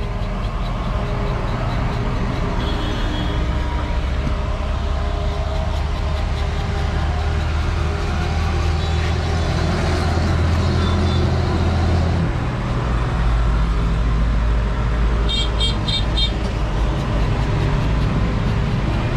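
Busy road traffic: vehicle engines running with a steady low hum, and horns sounding, late on as a quick string of short beeps.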